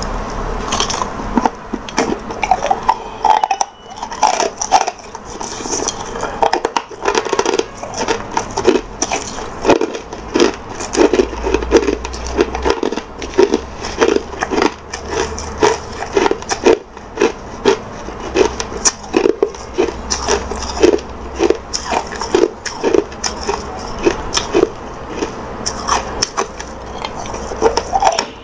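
Crushed ice being chewed, close up: a steady run of crisp crunches, about two a second, crackling throughout.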